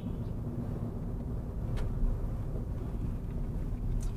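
A car's engine and tyre noise heard from inside the cabin while driving slowly: a steady low rumble, with a faint click about two seconds in.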